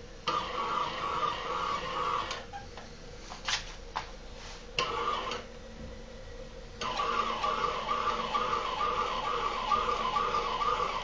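CNC-converted Optimum BF20L milling machine running under program control, its drive noise pulsing evenly about twice a second. It starts suddenly, stops after about two seconds, gives a few sharp clicks, and starts again about seven seconds in.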